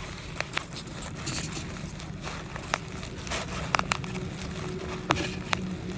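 Scattered light clicks and taps, about seven over a few seconds, over faint crinkling, from unpacked items and packaging being handled.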